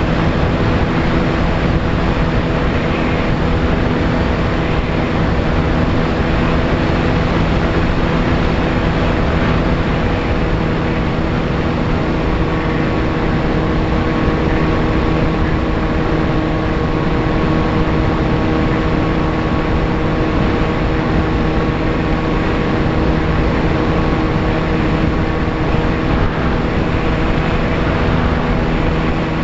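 VAS Chimera FPV plane's electric motor and propeller running steadily in flight, a set of steady tones over a loud rush of wind noise; the pitch shifts slightly about twelve seconds in.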